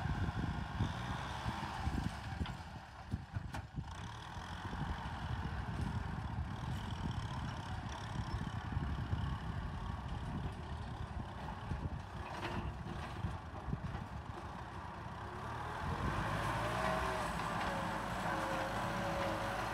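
Kubota M6040SU tractor's diesel engine running steadily while plowing. About sixteen seconds in it grows louder and a wavering whine comes in.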